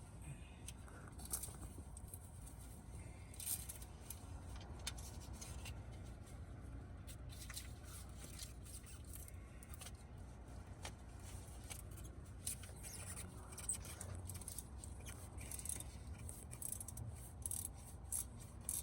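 Faint scattered clicks and scrapes of hands working at wiring and parts under a semi truck that won't start, over a low steady rumble.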